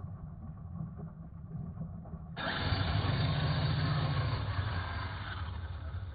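Simulated truck engine from an RC monster truck's sound kit playing through its small speaker: a low idling rumble that jumps into a louder, fuller rev about two and a half seconds in as the truck pulls away through snow.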